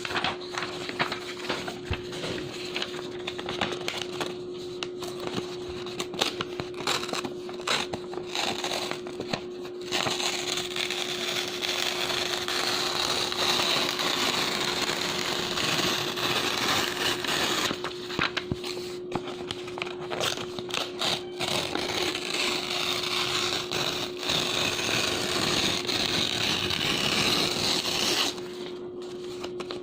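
Sheets of clean bond paper being torn and ripped by hand: crisp crackly tearing in short bursts for about the first third, then a denser, continuous tearing until near the end. A steady low hum runs underneath.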